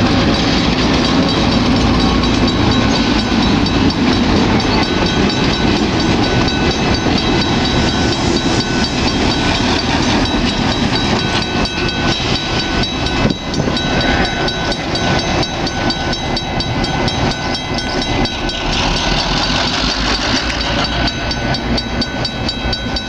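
Freight train of boxcars rolling by with wheels clattering on the rails, then a pair of EMD GP16 diesel locomotives running past; the sound eases slightly toward the end.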